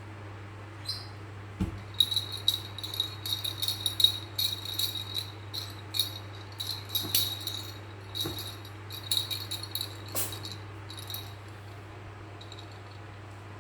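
A small rattle shaken in quick, irregular bursts of thin, high clicks, stopping about eleven seconds in. A steady low hum runs underneath.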